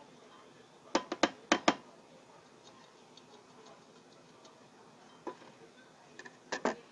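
Metal powder shaker being shaken to dust powder, giving sharp rattling clicks in two quick runs: four about a second in, and a few more near the end.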